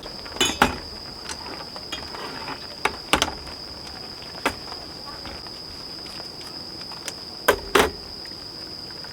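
A few sharp clicks and knocks from utensils and objects being handled at a camp table: a pair about half a second in, one after about three seconds, and a close pair near the end. Under them is a steady high-pitched insect trill.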